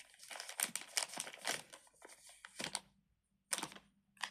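Crinkling and rustling of small plastic items being handled, a rapid run of short scratchy sounds, then two short sharp clicks near the end.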